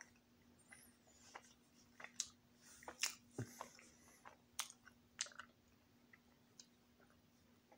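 A person eating a peanut butter sandwich close to the microphone: soft, irregular wet mouth clicks and smacks of chewing and biting, busiest in the middle, over a faint steady hum.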